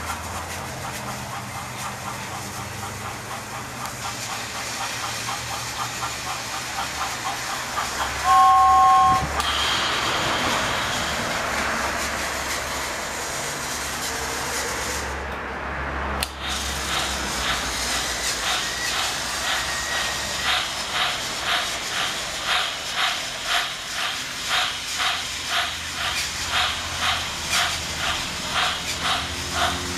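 Battery-powered Tomy Trackmaster toy train running along plastic track with a steady motor hum, hauling a rake of coaches. About a third of the way in comes a short, loud two-note tone, and in the second half the train gives a regular clicking about twice a second.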